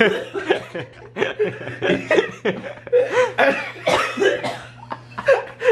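A person coughing again and again, mixed with laughter, from the burn of very spicy Korean noodles.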